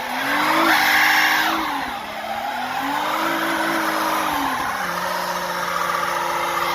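Mazda MPV engine revved hard twice, its pitch climbing and falling, then dropping about five seconds in to a steady, lower held pitch as it runs under load for a chained-up burnout.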